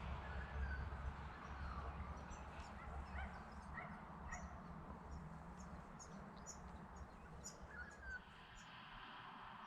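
Faint chirps and short whistled calls of small birds, over a low steady rumble that fades out near the end.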